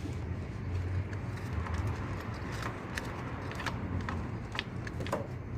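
Hand tools and parts being handled during engine work: scattered sharp clicks and taps, about ten of them, over a steady low hum.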